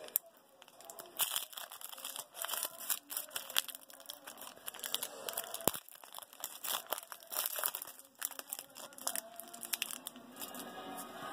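A foil trading-card pack crinkling and being torn open by hand: an irregular run of sharp crackles and short rips.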